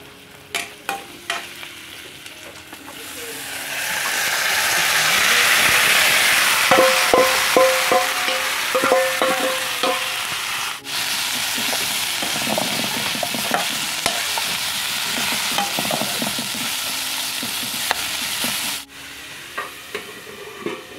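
Chopped jackfruit frying in hot oil in an iron wok: a loud sizzle that swells a few seconds in and holds. Over it, a steel ladle scrapes and clinks ringingly against the steel bowl and the wok.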